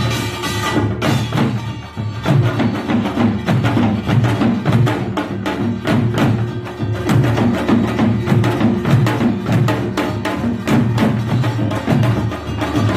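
Korean pungmul percussion ensemble playing a fast, driving rhythm of dense, repeated strikes on gongs and drums, with a brief dip in loudness about two seconds in.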